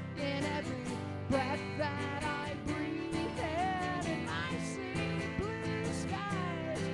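A live band playing a song: strummed acoustic guitar and electric guitar under a sung lead vocal.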